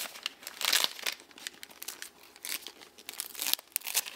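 Brown wrapping paper crinkling and tearing as a wrapped book is unwrapped by hand: irregular crackles, loudest just under a second in and again near the end.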